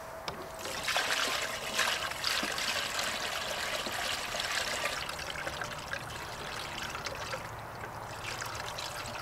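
Water poured from a bucket through a plastic funnel into a 5-gallon bucket chicken waterer, a steady trickling splash that starts about half a second in.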